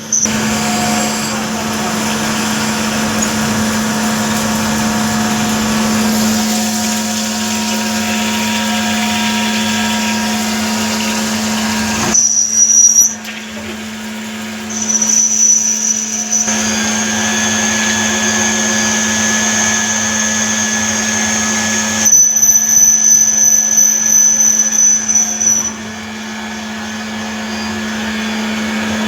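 CNC lathe turning D2 tool steel: a steady machine hum with a high whine that drops out and returns. Twice the cutting turns louder and rougher: once briefly near the middle, and again for a few seconds later on.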